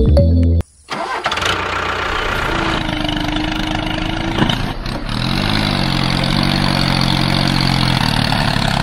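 Music cuts off under a second in, and an engine-like running sound of a DIY mini tractor follows. It carries a steady tone for a second or two and then a lower, even hum.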